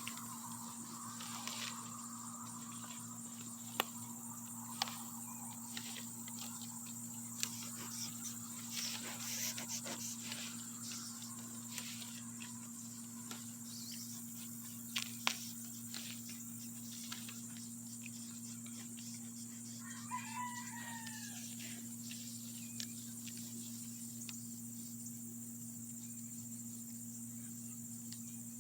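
Goats browsing a tree: scattered sharp snaps and rustles of twigs and leaves being stripped and chewed. A rooster crows once, faintly, about twenty seconds in, over a steady high drone.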